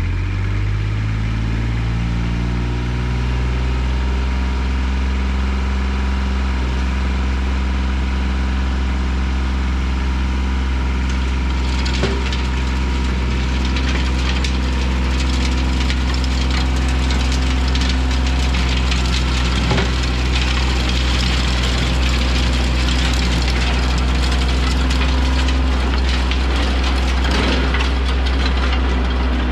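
An engine running steadily, its pitch rising over the first few seconds and then holding. From about twelve seconds in, a rough crackling noise with scattered clicks joins it.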